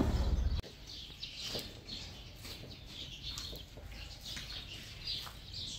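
Small birds chirping, many short high chirps repeating. A loud low rumble is under the first half second and cuts off suddenly.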